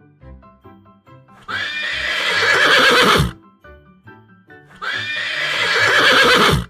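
A horse neighing twice, each whinny lasting nearly two seconds and ending in a falling trill, over light children's background music.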